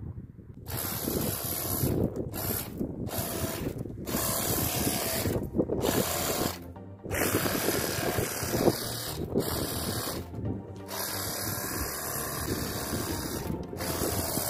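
Cordless pressure washer's pump motor running, with the hiss of water spraying through its foam cannon attachment. It starts about a second in and cuts out briefly about seven times as the trigger is released and pressed again.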